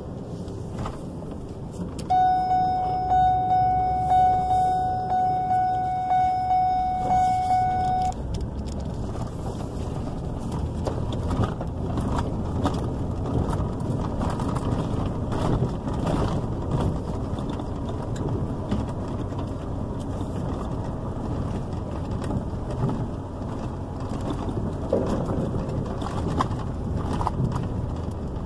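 Vehicle driving, heard from inside the cab: a steady engine and road rumble with light rattles and clicks. About two seconds in, a warning chime starts dinging rapidly, about twice a second, for some six seconds, then cuts off.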